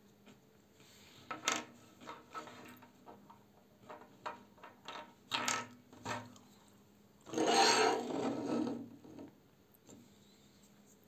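A small plastic toy figure rubbed and scraped against a wooden tabletop in several short strokes, then one louder scrape lasting about two seconds.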